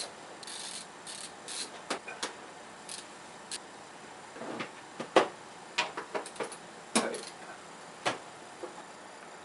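Scattered clicks, taps and short scrapes of hands working at a Samsung smart TV's plastic casing to take it apart.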